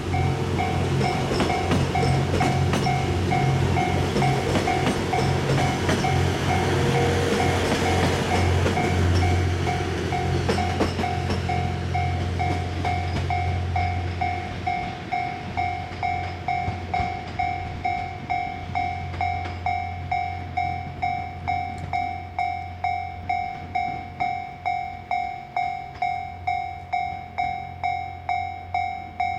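TWILIGHT EXPRESS Mizukaze hybrid train running over a level crossing, its diesel engine drone and rail clatter loud at first and then fading away about halfway through. A level-crossing warning bell dings steadily at about two strokes a second throughout and is left ringing alone at the end.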